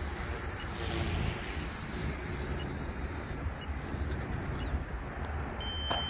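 Wind rumbling on the microphone over the faint whine of an OMP M2 V2 electric RC helicopter in flight, its battery nearly spent. A short, steady high beep comes near the end.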